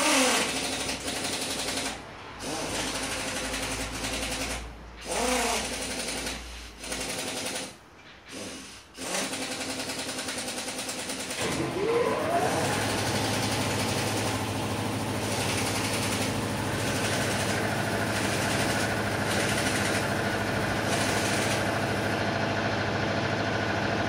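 A motor-driven machine cutting in and out several times, its pitch sliding as it starts and stops. About twelve seconds in it spins up and then runs steadily with a low hum.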